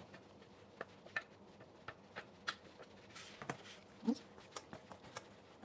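Metal tongs clicking and tapping against a stainless steel bowl as raw chicken wings are tossed in dry cornstarch: scattered light clicks, faint.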